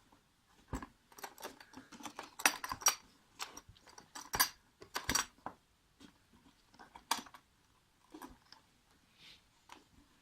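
A product box being handled and its lid or flap worked at by hand: irregular taps, scrapes and rustles, busiest from about two to five seconds in, with a single sharp knock about seven seconds in.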